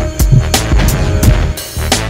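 Background music with a steady drum-kit beat and a heavy bass line.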